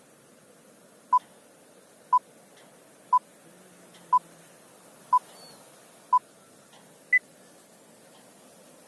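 Film-leader countdown beeps: six short beeps of the same pitch, one second apart, then a seventh, higher beep a second later, over a faint steady hiss.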